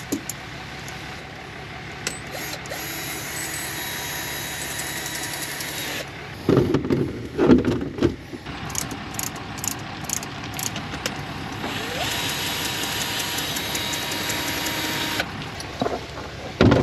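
Power drill run twice for about three seconds each, backing out the screw of an X-chock tire stabilizer between the RV's wheels. In between there are a few loud knocks as the chock is loosened and handled.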